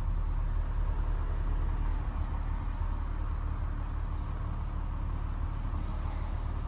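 Steady low rumble of a running vehicle, even throughout with no clear change.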